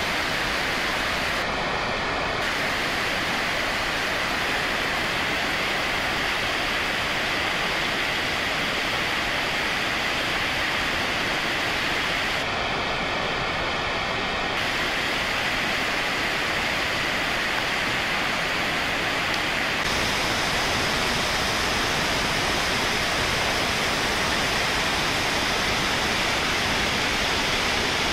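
A large waterfall on the Genesee River, a steady, unbroken rush of falling water, with a touch more hiss in the upper range from about two-thirds of the way in.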